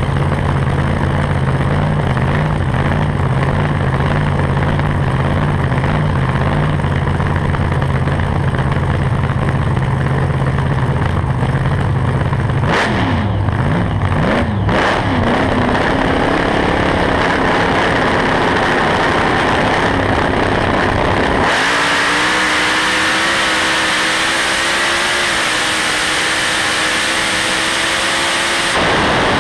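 Supercharged Top Doorslammer drag car's V8, heard from an onboard camera: a loud, lumpy idle, a few quick revs about 13 seconds in, then from about 21 seconds in a full-throttle pass of roughly seven seconds with the pitch slowly rising. On this pass the engine has lost a cylinder early in first gear and is down on power. It cuts back near the end as the throttle comes off.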